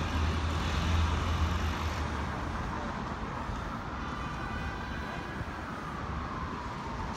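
Street traffic noise: a vehicle's low rumble fades over the first couple of seconds, then a faint tone slides slowly downward near the end.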